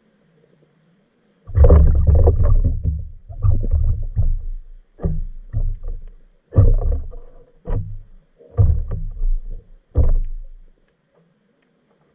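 Sloshing and knocking of water against a submerged camera, heard as a string of loud, deep, irregular bursts that begin about a second and a half in and stop near the end.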